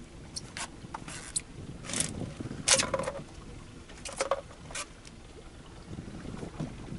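Water slapping and splashing against the hull of a small open boat at sea: short, irregular hissing splashes over a steady low rumble of wind and sea.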